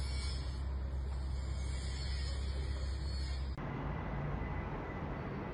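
Steady low rumble of a distant helicopter over outdoor background noise. A little over halfway through the sound changes abruptly to a lighter hiss with a faint steady high tone.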